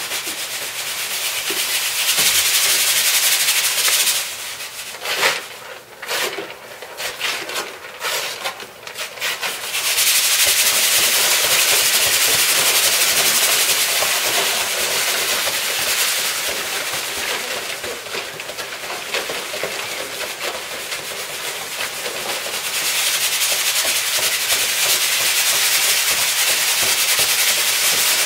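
A class of students performing sound effects together, making a dense, steady hissing rub. Between about four and ten seconds in it breaks into uneven, scattered bursts before the steady hiss returns.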